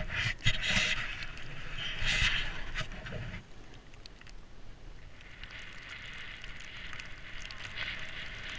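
Snowboard sliding over packed snow, its edges scraping in strong rasping bursts for the first three seconds, then settling into a steadier hiss as it glides.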